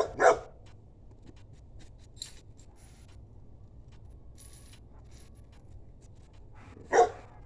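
A pit bull barking: two quick barks at the start and a single bark near the end, with faint small clicks and rattles in between.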